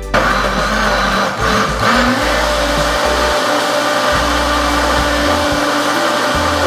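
Countertop blender switched on and running steadily at full speed, blending the tapioca and coconut-milk cake batter.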